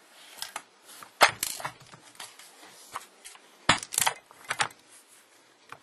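A WE SCAR-L gas blowback airsoft rifle being handled: a few sharp clicks and knocks from its stock and body parts, the loudest about a second in and a quick pair near four seconds, with lighter ticks between.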